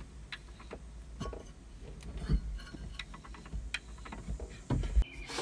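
Irregular light metallic clicks and knocks from a Rotax 717's rotary valve shaft being rocked back and forth by hand, with a heavier thump near the end. The shaft has far too much play because its brass drive gear has broken off.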